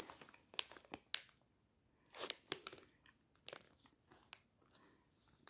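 Close-up chewing of a soft foam marshmallow Santa candy: faint, scattered wet mouth clicks and smacks with short quiet gaps between.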